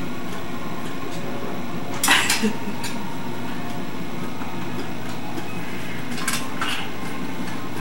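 Steady background hum and hiss of an old home-video recording, with two brief clusters of clattering handling noise, about two seconds in and again at about six seconds.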